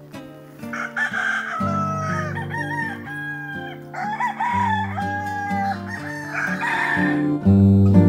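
Gamefowl roosters crowing: a long crow about a second in, a second crow around four seconds in, and a shorter call near the end, over acoustic guitar background music.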